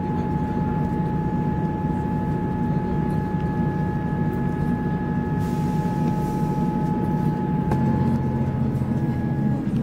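Diesel passenger train running steadily along the line: a low engine hum under a constant high-pitched transmission whine.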